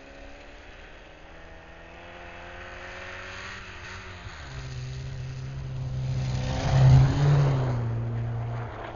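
Old cars' engines running and revving on an ice track. The sound builds to its loudest about seven seconds in, then drops away near the end.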